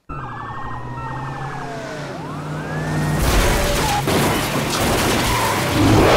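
Police car sirens wail, their pitch sliding down and back up over the engines of an approaching chase. About three seconds in, a car speeds past with a loud rush of engine and tyre noise.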